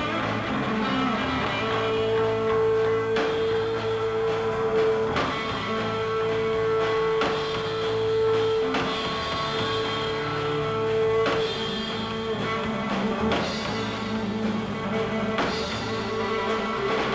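Rock band playing live, an instrumental stretch without singing: guitar and drums, with one note held for several seconds before the band plays on.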